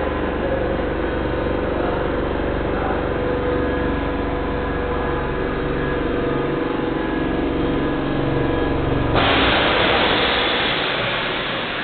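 Air compressor under a stopped Tobu Tojo Line electric train running with a steady mechanical drone and hum. About nine seconds in, the drone cuts off and a loud steady hiss takes over.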